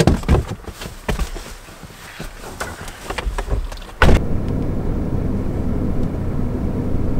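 A few scattered clicks and knocks, then about four seconds in the pickup truck's engine starts with a brief loud surge and settles into a steady idle.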